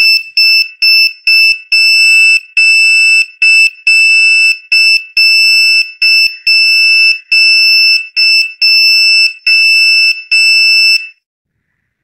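Small electronic buzzer on an Arduino Nano Morse code encoder beeping out Morse code: a high-pitched tone keyed in short dots and longer dashes, a run of about twenty beeps that stops about eleven seconds in.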